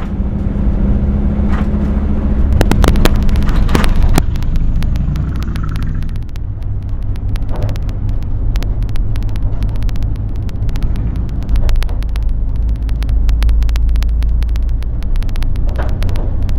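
A car driving in city traffic, heard from inside the cabin: a steady low engine and road rumble with scattered sharp clicks.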